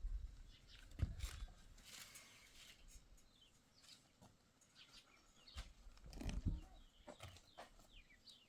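Faint outdoor ambience: a few short high chirps and scattered clicks, with low thumps about a second in and again around six seconds in.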